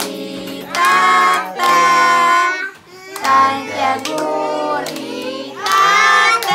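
Group of children singing a birthday song around the cake, with hands clapping along. The singing comes in held notes about half a second long.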